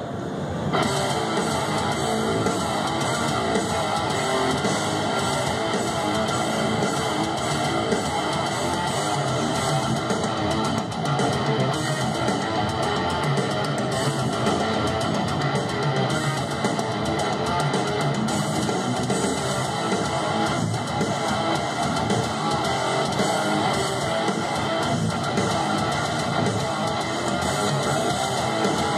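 Two electric guitars played live together in an instrumental heavy metal piece, the music kicking in sharply just under a second in and running on without a pause.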